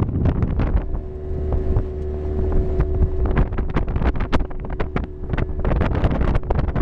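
Wind buffeting the microphone: a heavy low rumble with crackling gusts. Under it a steady hum at one pitch starts about a second in and stops near the end.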